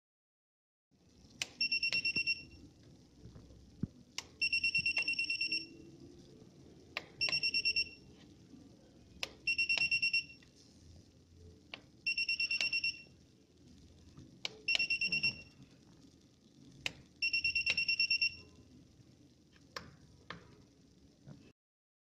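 Plastic clicks of CTT23 wireless call buttons being pressed, each followed by a high electronic beep of about a second from the CTW05 watch pager system, seven times over. This is the pager signalling each incoming bill or call request. Near the end, a few more button clicks come without a beep.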